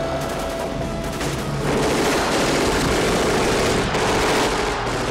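Rapid automatic gunfire in a dense, continuous fusillade, getting louder about two seconds in.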